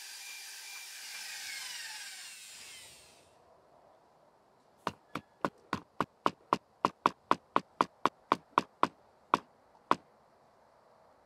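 Electric drill with a paddle mixer stirring putty in a bucket, its motor whine falling in pitch and dying away about three seconds in. After a short silence come about eighteen sharp, evenly spaced ticks, three or four a second.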